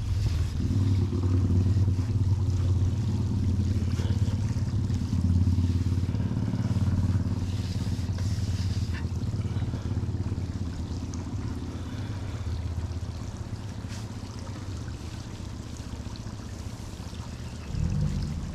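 Petrol pressure washer's engine running steadily, a little quieter in the second half, with water spraying.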